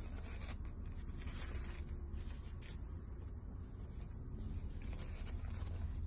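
Crinkling and scratchy rustling of a 3-ply disposable face mask's nonwoven fabric layers being peeled apart by hand, in short irregular crackles over a steady low hum.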